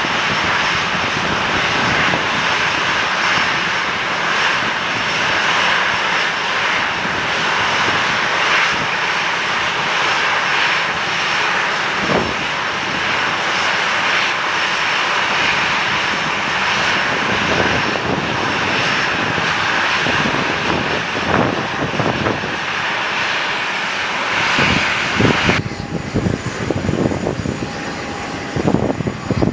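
Jet airliner engines running with a steady, loud rush. About 26 seconds in the sound changes abruptly to a quieter, uneven noise with a thin high whine.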